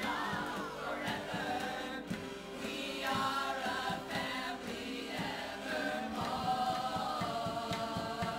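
A group of voices singing a song together, with guitars playing along.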